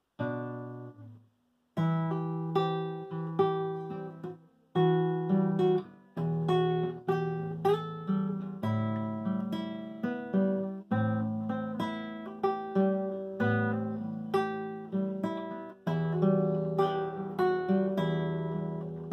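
Acoustic guitar playing a song's introduction: a run of strummed chords, each left to ring and fade, with a brief pause about a second in.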